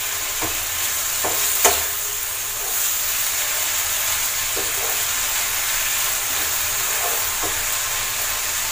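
Shredded chicken and cabbage filling sizzling in a frying pan as it is stir-fried with a wooden spatula, with scattered light knocks and scrapes of the spatula on the pan.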